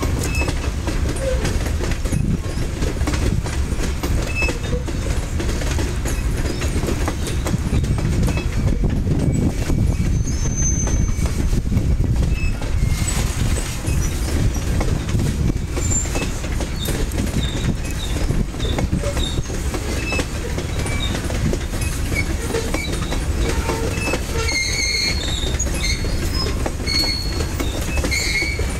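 Freight train of covered hopper cars rolling past, a steady deep rumble with wheels clacking over the rail joints. Short high wheel squeals come here and there, bunched near the end.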